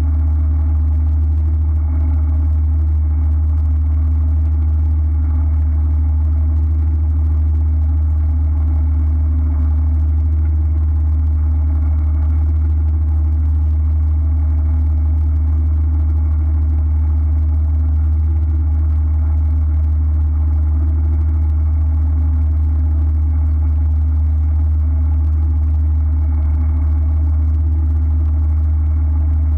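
Boat engine running steadily, a constant low hum that does not change.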